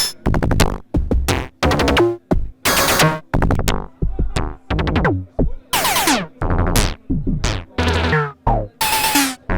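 Dreadbox Dysmetria synthesizer playing a sequenced pattern of short, percussive electronic hits, several with fast downward pitch sweeps, in a drum-machine-like rhythm.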